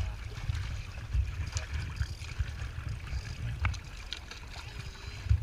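Water lapping and gurgling along the hull of a small sailing dinghy under way, with wind gusting over the microphone and a few short splashes.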